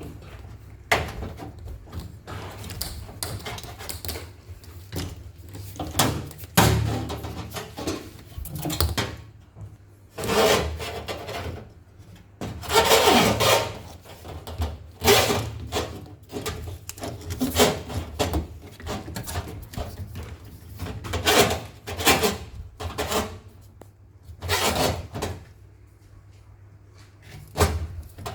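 Handling noise as a new drain hose is fitted into a front-load washing machine: irregular knocks and clicks with stretches of rubbing and scraping as the hose is pushed into place.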